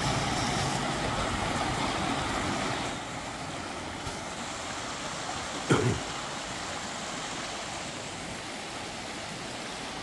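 Shallow rocky mountain stream running over stones: a steady rushing hiss of water, a little quieter after about three seconds. One brief short sound cuts in just before six seconds.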